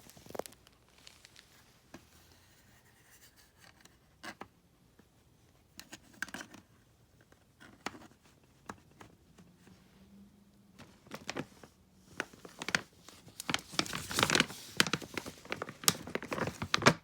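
Small plastic toy pieces and packaging being handled: scattered clicks and crinkling rustles, sparse at first, then busier and louder for the last few seconds.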